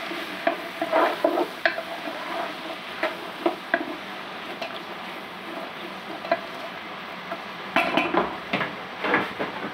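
Onions sizzling in hot oil in a pan, with a spoon knocking and scraping against the pan as they are stirred, in short strokes scattered throughout and a quicker run near the end.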